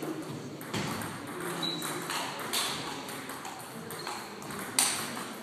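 Table tennis ball clicking off bats and the table: a handful of sharp, irregular hits, the loudest a little before the end, over a steady background hum in a large hall.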